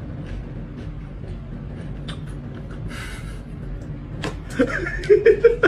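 Faint scattered ticks and scratches of cat litter granules under a kitten, over a steady low hum; about four and a half seconds in a person starts chuckling, the loudest sound.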